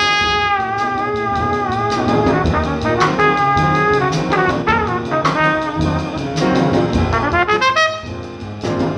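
Jazz trumpet solo over piano, upright bass and drums: a long held note that bends slightly, another held note a few seconds in, then shorter phrases and quick rising runs near the end.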